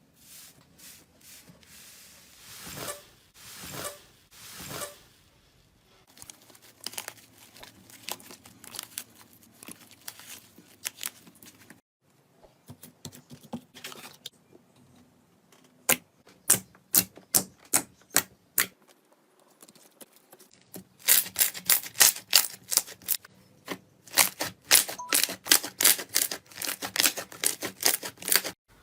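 Slime being worked by hand, giving runs of sharp pops and clicks in several short clips one after another. In the later clips they come about three to four a second, and the densest, loudest run fills the last third.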